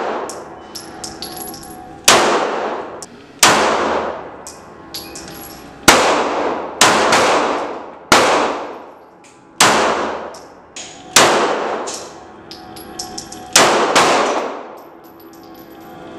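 Glock 17 Gen 5 9mm pistol firing about ten shots at an uneven pace, some in quick pairs, each report trailing off in a long echo. Small clicks sound between the shots.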